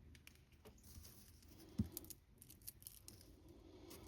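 Faint paper handling while gluing: light rustles and small clicks, with one soft knock a little under two seconds in.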